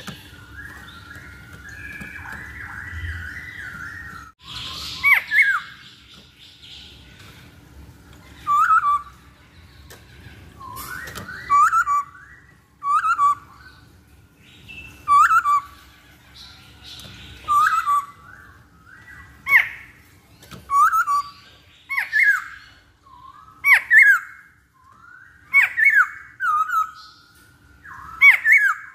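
Masked laughingthrush (poksay Hongkong) calling. A soft, continuous warble in the first few seconds gives way to loud, short, down-sliding call notes, repeated about every one and a half to two seconds.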